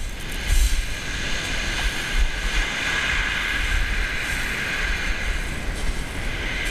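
Small waves breaking and washing up a shingle beach, the wash swelling through the middle and easing near the end, over low, gusty rumbling of wind on the microphone.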